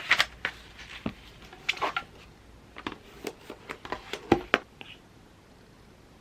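Handling noise: a quick, irregular run of clicks, taps and rustles from small objects being moved and set down, stopping about five seconds in.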